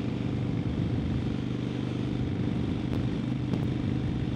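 Harley-Davidson Sportster XL1200N's air-cooled 1200 cc V-twin running steadily at motorway cruising speed, under a constant rush of wind and road noise.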